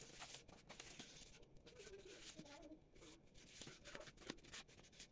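Faint rustling and crinkling of a sheet of origami paper being handled, folded and creased by hand: a scatter of small soft scrapes and clicks.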